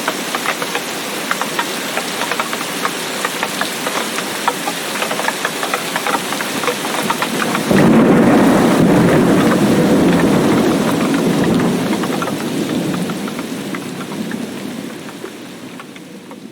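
Heavy rain of a tropical thunderstorm falling, with a dense patter of drop ticks. About eight seconds in, a sudden loud thunderclap breaks and rolls on as a low rumble that slowly dies away, and the rain fades out near the end.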